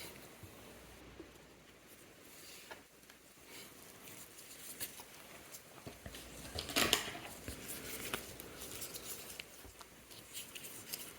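Faint small clicks and light scrapes of tweezers and tools handling the parts of a mechanical watch movement, with one louder brief scraping rustle about seven seconds in.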